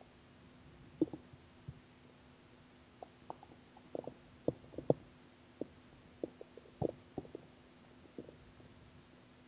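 An empty, hungry stomach growling: a single gurgle about a second in, then a run of short, irregular gurgles and pops in the middle.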